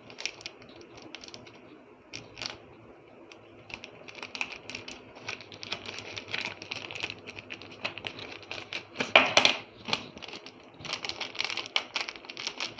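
Plastic packaging of a stylus pen being opened by hand: a run of small clicks and crackles, with a louder rustle about nine seconds in.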